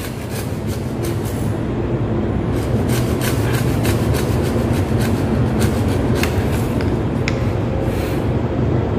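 Hand hacksaw cutting through a plastic PPR pipe: the blade rasps back and forth in steady, repeated strokes. The cut is slow going because the pipe material is tough.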